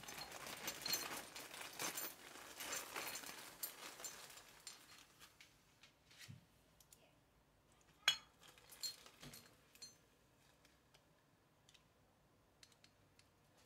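Faint metallic clicking and scraping of small steel parts as a bearing is worked out of a chainsaw engine's crank and connecting-rod assembly: a busy rattle of little clicks for the first few seconds, then scattered single clicks, the sharpest about eight seconds in.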